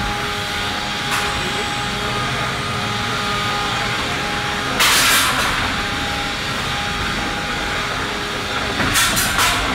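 Antweight combat robots fighting: a steady motor whine under short, loud bursts of hissing, scraping noise, one about five seconds in and a few close together near the end.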